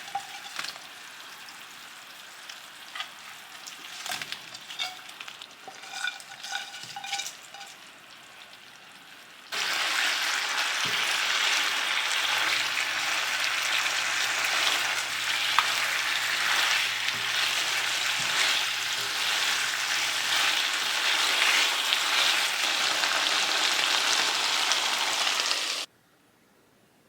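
Stir-fry in a pan: scraping and clinking of a utensil against the pan over a light sizzle, then a sudden loud, steady sizzle of food frying in hot oil starting about nine seconds in, which stops abruptly near the end.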